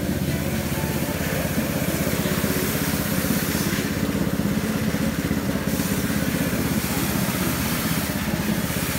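A small engine running steadily at an even speed, with a rapid low pulse.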